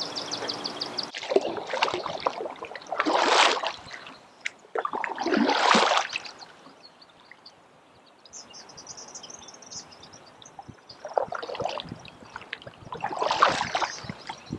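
Kayak paddle strokes in the water: the blade dips and pulls in a series of splashing swishes, each about a second long, with a pause of a few seconds in the middle.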